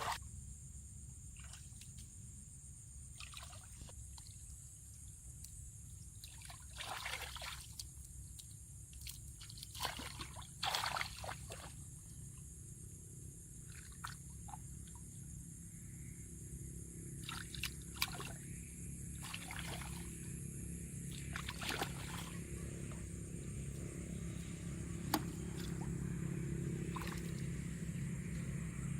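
Water sloshing and splashing in short irregular bursts, the biggest a little after the first ten seconds, over a steady low hum.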